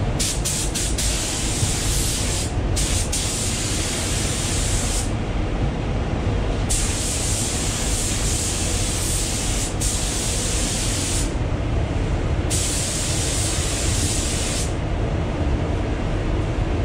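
Gravity-feed spray gun hissing as it sprays base coat onto a car hood, in four long passes of a few seconds each, with a few quick trigger blips at the start. Under it runs the steady low rumble of the paint booth's ventilation.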